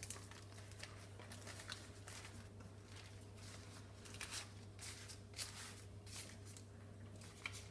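Faint rustling and crinkling of baking paper as a sheet of shortcrust pastry is unrolled and smoothed flat by hand, over a low steady hum.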